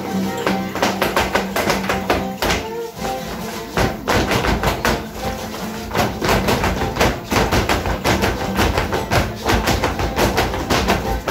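Traditional dance music with a held-note melody, under a rapid clatter of the dancers' feet stamping and tapping on a hard floor in quick runs of beats, with a short lull about three seconds in.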